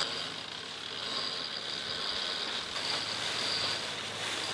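A sailing ketch's inboard auxiliary engine running steadily while the boat motor-sails, a low even hum under a faint hiss.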